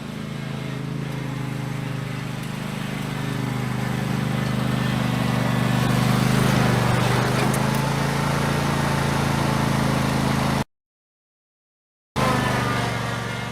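Customized racing lawn mower's engine running steadily, growing louder toward the middle as it is driven. It cuts off abruptly, then resumes briefly near the end.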